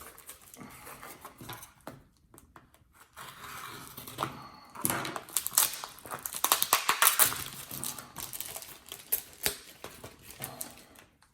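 A coin parcel being unwrapped by hand: rustling and crinkling of packing material with quick clicks and taps, busiest about halfway through.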